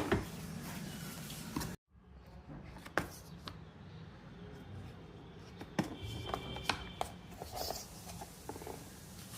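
A cardboard box being opened and its packed parts handled: a few scattered clicks and knocks, with the sound cutting out abruptly for a moment about two seconds in.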